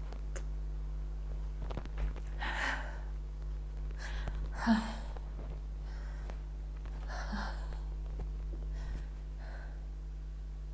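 A person's stifled sneezes and sharp breathy gasps as they try to hold the sneezes in: about four short bursts a couple of seconds apart, the sharpest about five seconds in.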